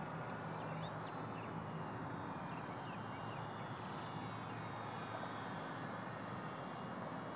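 Radio-controlled model airplane motor droning at a distance, a faint thin whine that shifts in pitch, over a steady rushing hiss.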